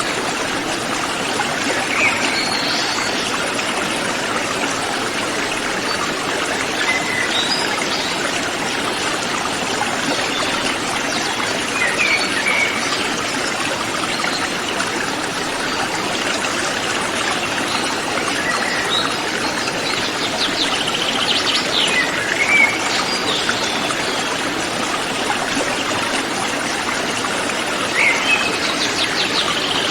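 River stream flowing in a steady, even rush, with forest birds giving short calls above it every few seconds, including a quick run of repeated notes a little past the middle and again near the end.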